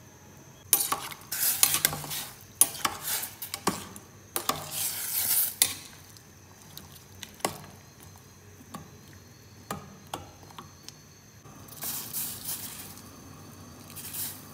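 A spoon stirring and scraping through chopped fruit, sugar and water in a stainless steel saucepan, clinking against the pot. The clinks come thick and fast for the first several seconds, then only now and then, with another short burst of stirring near the end.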